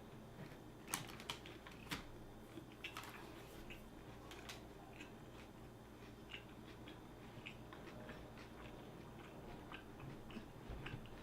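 Close-up chewing of a turkey sub sandwich: a couple of sharp crunchy clicks about one and two seconds in, then soft, scattered wet mouth clicks.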